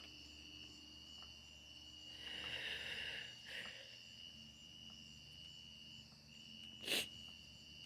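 Crickets trilling steadily in a high, even tone, with a short rush of noise about two seconds in and a single sharp click near the end, the loudest sound.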